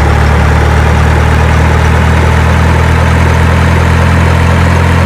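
Steady, loud low engine rumble at idle, holding one pitch without revving.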